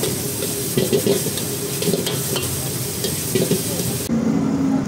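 Minced meat with chili and basil sizzling in a hot wok while a metal ladle stirs it, with scrapes and clicks of the ladle against the pan. About four seconds in the sizzle cuts off and a steady low hum takes over.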